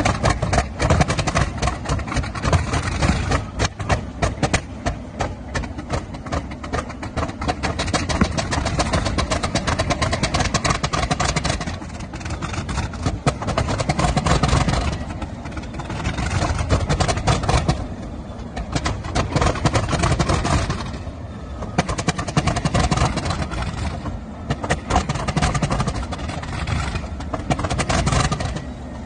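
Class 37 diesel locomotives' English Electric 12CSVT V12 engines starting from cold, coughing and spluttering into life. They run unevenly, a heavy rumble whose loudness swells and sags in waves every few seconds.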